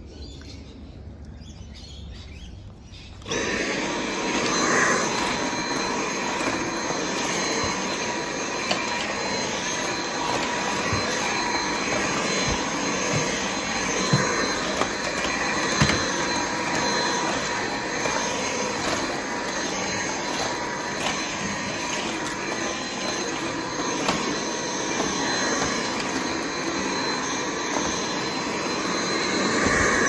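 A stick vacuum cleaner running steadily: a motor whine over rushing air noise. It cuts in abruptly about three seconds in, and a few faint clicks come through the middle.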